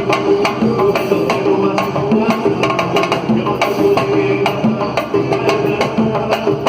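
Samba percussion music: drums and sharp wood-block-like knocks in a fast, steady rhythm, with short repeated low pitched notes.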